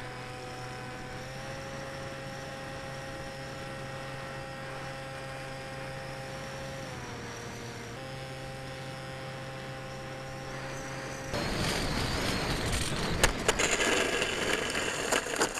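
Small electric motor and propeller of an RC airplane whining at a steady pitch, rising slightly early on and dropping near seven seconds with the throttle. About eleven seconds in, this gives way to a louder rushing, rattling noise as the plane rolls along asphalt.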